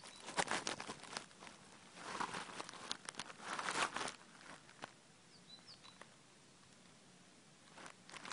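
Rustling and scuffling in three bursts of quick clicks and crackles, with a quieter stretch between them in which two faint, short, high chirps are heard.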